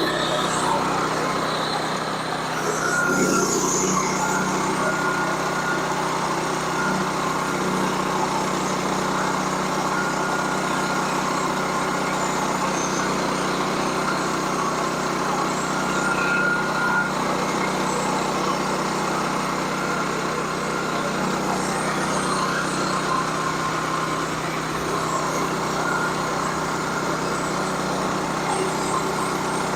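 Sawmill running steadily under power, its small engine at a constant speed while the saw works through a log, with a thin whine that comes and goes.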